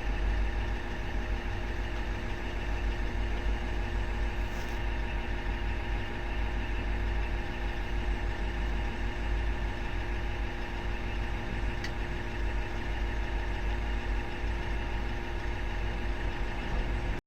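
Komatsu PC3000 mining excavator's diesel engine running steadily with a deep, even rumble and a constant hum.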